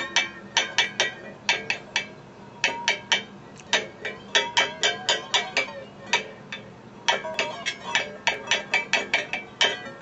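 Wire balloon whisk striking a hand-held metal pot lid, played as a percussion instrument: quick runs of sharp metallic clinks with the lid ringing briefly after each, broken by a short pause about two seconds in and a longer one about six seconds in.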